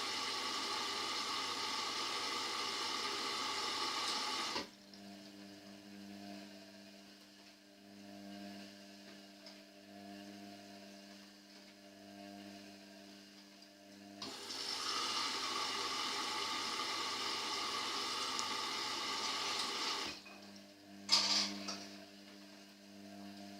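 Indesit washing machine filling at the start of a wash: water rushes in through the inlet in two spells of about five seconds each, with a quieter steady machine hum between them and a short click about 21 seconds in.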